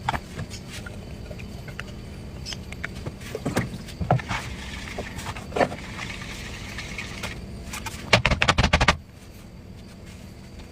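Knife working a watermelon: scattered taps and clicks with a stretch of scraping, then a quick run of chopping strokes lasting about a second near the end.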